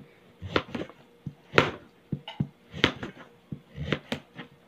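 Kitchen knife slicing raw squash (kalabasa) on a cutting board: a sharp knock each time the blade goes through and hits the board, about one to two cuts a second at an uneven pace.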